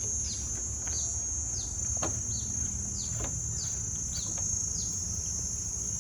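Outdoor ambience: a steady high-pitched insect drone, with a bird repeating short chirps that fall in pitch every half second or so, over a low steady rumble.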